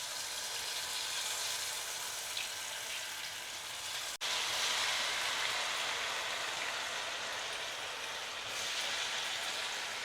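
Batter-coated cauliflower pieces (cauliflower 65) deep-frying in hot oil, a steady sizzle. It cuts out for an instant about four seconds in and comes back slightly louder.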